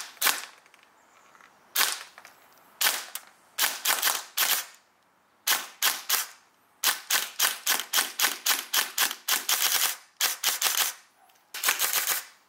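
Airsoft AK electric gun (AEG) firing single shots in quick strings, a sharp mechanical snap per shot at about five a second, with short pauses between strings; the first couple of shots come alone.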